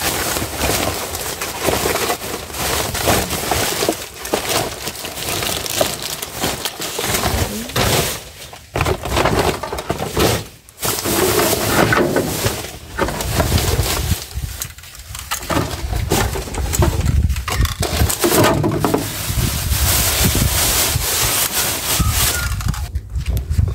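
Black plastic rubbish bags and paper bags in a dumpster rustling and crinkling as a gloved hand rummages through them, with a few brief pauses.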